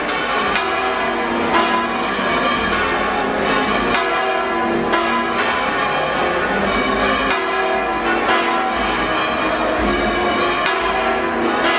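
Church bells pealing, many strokes overlapping so their ringing tones blend into a continuous clangour.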